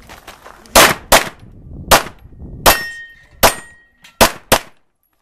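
Pistol shots fired in an uneven string: seven in all, the last two close together. A short ringing tone follows the fourth shot.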